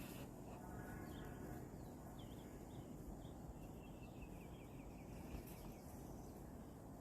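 Faint bird chirps over steady outdoor background noise, with a quick run of repeated chirp notes in the middle.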